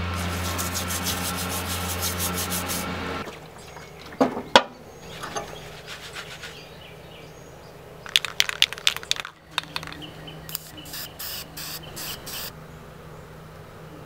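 A brush scrubbing an acid-etched aluminum belt buckle in baking soda water, in fast back-and-forth strokes over a low steady hum that stops about three seconds in. A couple of sharp knocks follow, then two short runs of rubbing strokes on the buckle.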